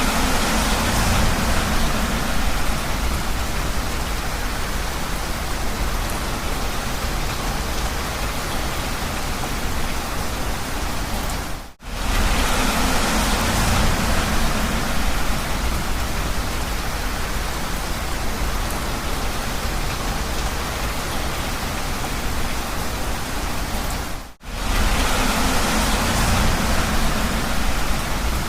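Heavy rain falling in a steady, dense hiss. It cuts out for a moment twice, about 12 and 24 seconds in.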